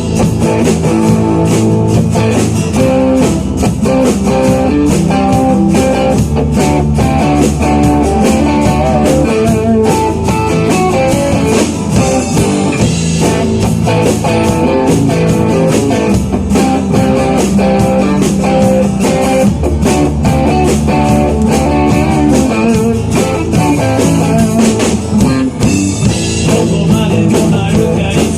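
Rock band playing live: guitar, bass and drum kit in a blues-tinged rock and roll groove with a steady beat.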